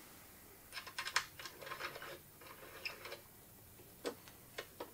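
Allen key tightening the bolts that fix outrigger feet to a floorstanding speaker's base: light, irregular clicks and ticks in small clusters over the first three seconds, then two single clicks near the end.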